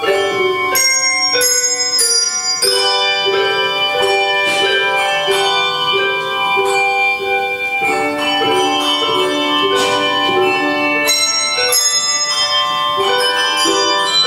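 Handbell choir playing a tune in chords, many tuned bells struck in turn and together, each note ringing on into the next. A few brighter chords are rung about a second in and again near the end.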